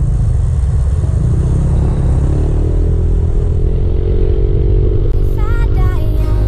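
Motorcycle engine running while riding, under heavy wind rumble on the microphone; from about two seconds in its note climbs as it accelerates. Music with a singing voice comes in near the end.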